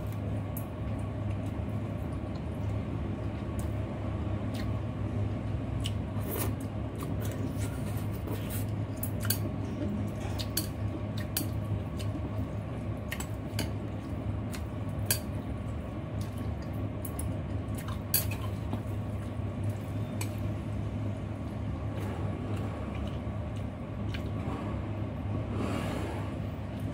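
Chopsticks clicking and tapping against a bowl as they stir a bowl of noodles, with wet squishing of the noodles, over a steady low hum. Near the end a louder wet noise comes as a clump of noodles is lifted out.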